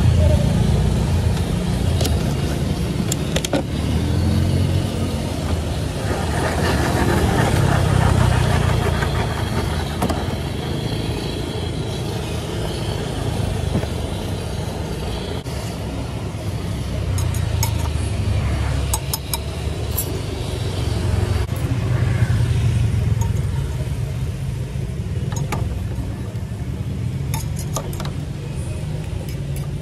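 Street traffic going by, a low rumble that swells and fades as vehicles pass. There are a few light clicks in the second half, including a metal spatula on the crepe pan near the end.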